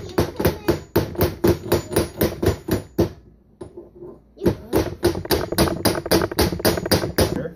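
Small hammer tapping rapidly on a Mercury outboard distributor shaft, driving the secondary spring down into its hole: about four ringing metal-on-metal taps a second. The tapping stops for about a second and a half near the middle, then carries on.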